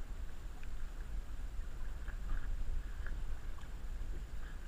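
Low, steady rumble of a stopped boat's motor with water against the hull, and a few faint clicks as the tow rope is handled.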